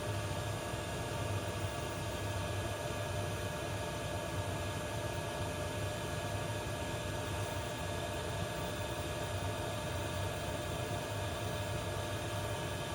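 Diesel air heater running steadily: a constant fan drone with a low hum and a few steady whining tones, already up to temperature and blowing warm air.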